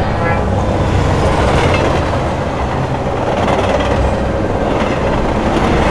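A train running along the track, a steady noise with no break.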